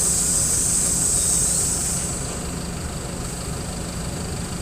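Mercedes-Benz OF-1721 bus diesel engine idling steadily with a low drone, sounding through a holed, leaking exhaust. A high compressed-air hiss from the bus's air system fades away over the first couple of seconds.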